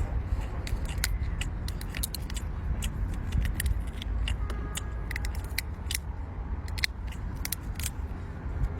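A large cooked prawn being shelled and eaten by hand: many sharp, irregular crackles and clicks of the shell, over a low steady rumble.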